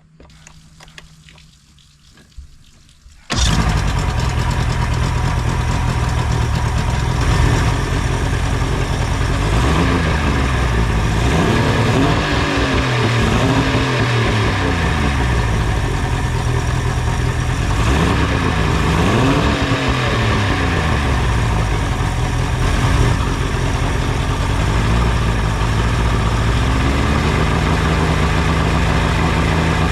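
Mariner 60 hp outboard motor running. It comes in suddenly about three seconds in, and its pitch rises and falls several times as the engine speed goes up and down.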